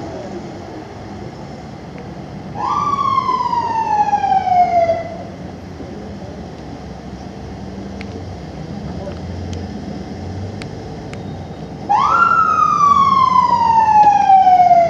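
Ambulance siren sounded in two short manual bursts, each sweeping quickly up and then winding slowly down in pitch over about two and a half seconds: one a few seconds in, the other near the end. Steady traffic noise runs between them.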